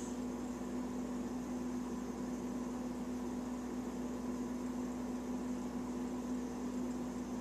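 Steady, unchanging hum with one constant low tone and a faint hiss, like a running appliance or fan motor.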